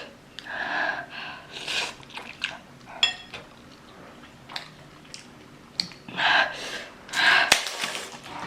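A person sucking in and blowing out air through the mouth against the burn of very spicy noodles: several hissing breaths, the loudest ones near the end, between the small clicks and smacks of chewing.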